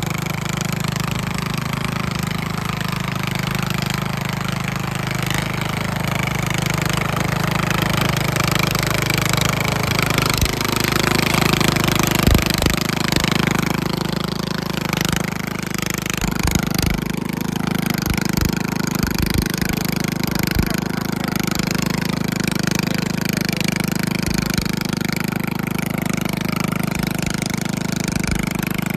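Engine of a Craftsman riding mower running loud and steady through a short exhaust pipe turned straight up through a hole in the hood. The engine note shifts about a third of the way in, and scattered knocks follow.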